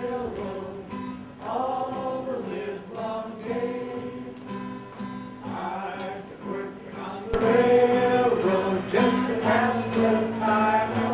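A group of voices singing a train song to instrumental accompaniment, with held instrument notes under the tune. A sharp click comes about seven seconds in, and the music is louder after it.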